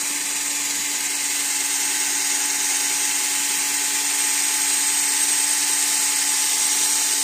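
12 V DC cordless drill, a low-speed model of up to 650 RPM, running steadily at a constant speed with an even motor whine.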